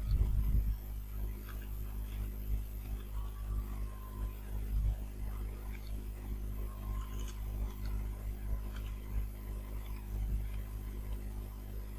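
Steady low electrical hum with a few faint, scattered clicks from a computer keyboard and mouse being used to type.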